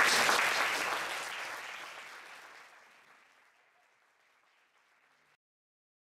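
Audience applauding at the end of a spoken-word poem, loudest at the start and fading away over about three seconds.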